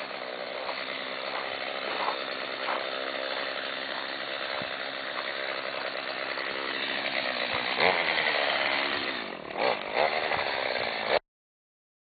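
A chainsaw engine running steadily, revving up and down near the end, then cutting off suddenly.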